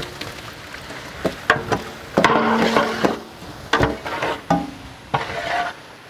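A long metal ladle scraping and knocking against a large metal cooking pot while stirring chopped tomatoes into an onion masala frying in oil. It gives a series of sharp knocks, with the longest scrape a little after two seconds in, ringing briefly.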